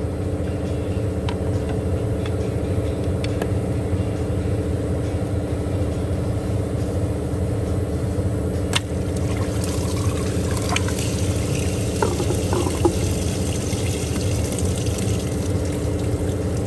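Engine coolant pouring and splashing out of the water pump opening as the pump comes off, starting after a click about nine seconds in and growing toward the end. A steady low hum runs throughout.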